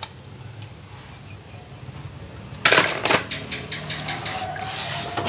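Die-cast toy cars clattering in a plastic tub: a sudden loud rattle about two and a half seconds in, then quick clinks of metal against metal and plastic.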